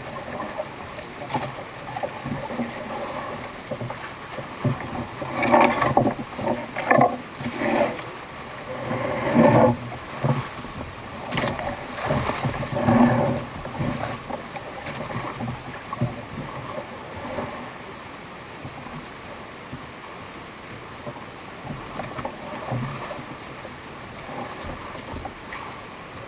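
Small fishing boat's engine running steadily, with a cluster of louder, irregular noises about five to fourteen seconds in.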